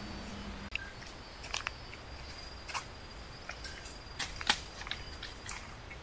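Dry leaf litter and twigs crackling in scattered, irregular clicks and light crunches, loudest about four and a half seconds in, over a faint steady high insect drone.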